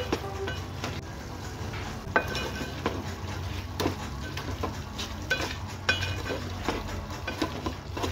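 A metal spoon stirring chicken pieces in a metal pot, with irregular scrapes and ringing clinks against the pot over a low sizzle of frying.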